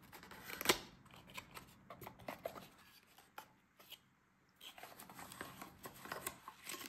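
Small thin cardboard retail box being opened by hand: a sharp snap near the start as the flap comes free, then scraping, clicking and rustling of card as the flaps are folded back and the chest strap is slid out, with a short pause midway.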